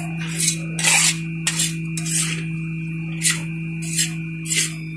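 Metal spatula scraping and clanking against a large metal wok as chow mein noodles are stirred and tossed: a quick, irregular run of strokes, the loudest about a second in, over a steady low hum.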